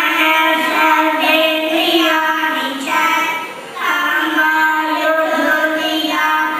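A group of young girls singing a prayer song together into microphones, in long held phrases with a short pause for breath about three and a half seconds in.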